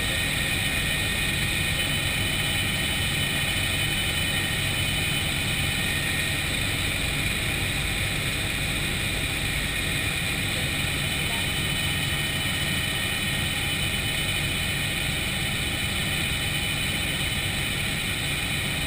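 Helicopter in flight heard from inside the cockpit: a steady engine and rotor drone with a steady high whine over it, unchanging throughout.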